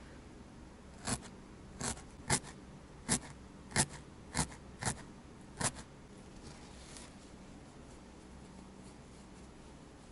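A felting needle stabbed through wool into a burlap backing: eight crisp punching crunches at uneven gaps of about half a second to a second, then it stops.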